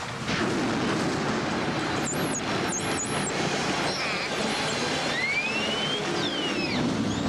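Dolphin whistling over the wash of sea water. Three short, high, falling chirps come about two seconds in, then a rising whistle and arching whistles near the end.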